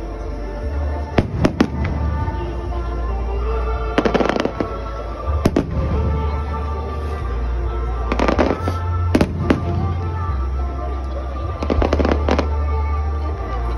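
Aerial fireworks shells bursting in irregular bangs, several in quick clusters, over music playing throughout.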